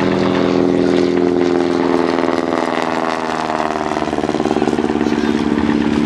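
Piston engines of replica First World War aircraft flying low past, a steady propeller drone whose pitch slowly drops in the middle as the aircraft go by.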